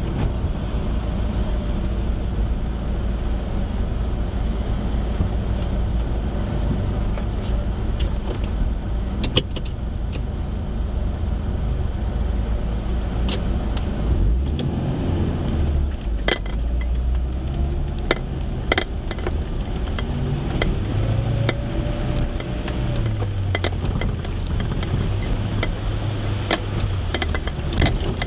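Suzuki Vitara's engine idling, heard from inside the cab, then revving up and down from about halfway through as it moves off over rough ground. Sharp knocks and rattles come every few seconds.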